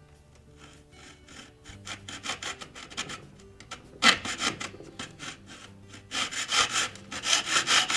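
Hacksaw cutting through the edge of a refrigerator door shelf retainer bar in quick back-and-forth strokes. The strokes start lightly a couple of seconds in, get louder about halfway through, and run steady and loud near the end.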